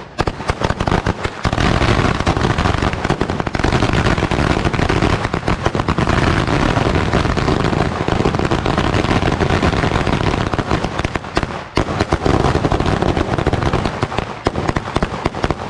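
A long string of Chinese firecrackers going off in a rapid, unbroken crackle of bangs for about fifteen seconds. There is a brief lull about three quarters of the way through, then it picks up again before stopping.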